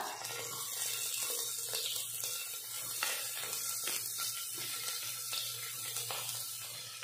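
Chopped onions sizzling in hot oil in a pressure cooker as they are pushed in from a steel plate with a spatula, the tempering stage of sambar: a steady frying hiss with a few soft knocks of the spatula against the cookware.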